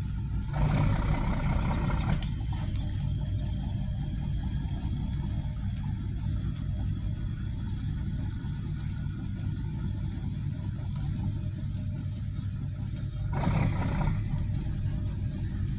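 Diesel engines of a high-speed catamaran ferry idling at its berth: a steady low hum. It swells briefly louder twice, once about half a second in and again near the end.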